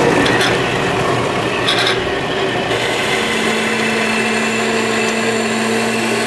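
Horizontal metal-cutting bandsaw running, its blade cutting through a 304 stainless steel swedge reducer clamped in the vise, with an even, steady grind. A steady tone comes in about three seconds in.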